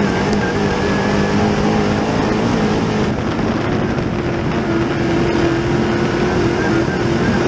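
Dirt Late Model race car's Chevrolet 604 crate V8 running hard on track, heard from inside the cockpit. The engine note shifts about three seconds in and holds steady for the next few seconds.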